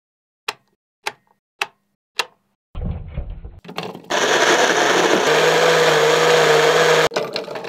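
Four sharp clicks about half a second apart, then the VonShef 4-in-1 jug blender's motor starts and runs steadily for about three seconds, its blades blending fruit. It cuts off suddenly about seven seconds in.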